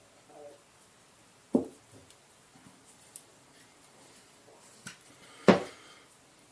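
Rocket-propellant grain and 3D-printed mold being handled on a tabletop: a light knock about a second and a half in, then a louder knock about five and a half seconds in as a piece is set down, with faint handling noise between.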